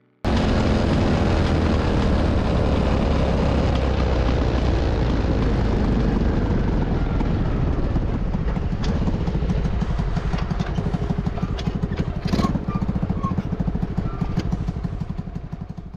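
Honda Cub 50's small single-cylinder four-stroke engine running steadily under way, mixed with a heavy rush of wind over the bike-mounted microphone. There is a single knock about three-quarters of the way through, and the sound fades near the end.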